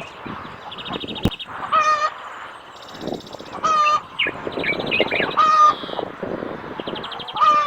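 Birds calling: four short, harsh calls about two seconds apart, with quick chattering trills between them and a single sharp click about a second in.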